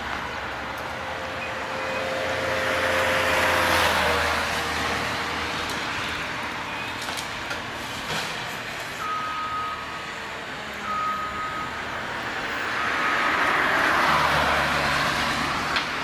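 John Deere 1470E forestry harvester at work: its diesel engine runs steadily, and a broad rush of machine noise swells twice. Three short beeps come about two seconds apart in the middle.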